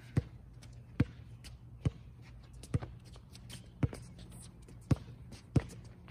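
A basketball being dribbled on an outdoor hard court: seven sharp bounces, about one a second, slightly uneven.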